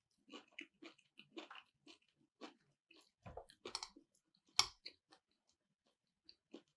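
Close-miked chewing of chuka seaweed salad dressed in nut sauce: quick, rhythmic, moist bites, two to three a second. Louder crunches come a little past halfway, with one sharp click, the loudest sound.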